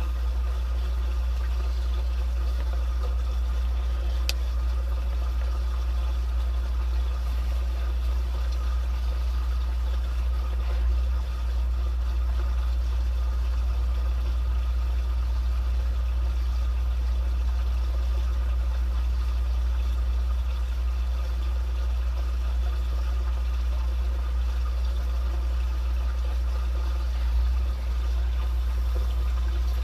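Water flowing steadily through a drain line, a continuous low rumble.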